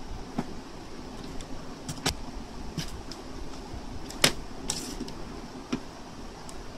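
Handling of a torn-open phone battery's foil pouch: scattered sharp crinkles and clicks over a steady background hiss, the loudest click a little past the middle.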